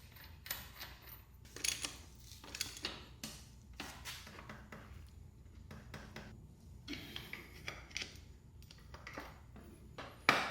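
Scattered light metallic clinks and taps as the nut and tab lock washer are fitted over a motorcycle's steel front sprocket on the transmission output shaft, with a sharper knock right at the end.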